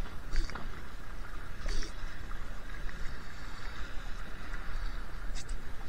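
Water rushing past a Laser 2 dinghy's hull as it sails in strong wind, with wind rumbling on the microphone. Two short louder splashes come about half a second and about two seconds in.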